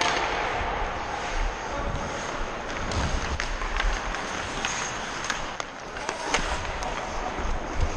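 Hockey skates scraping and carving on the ice, with several sharp clacks of sticks and puck in the second half, over a rumble of wind on the microphone of a skater's moving camera.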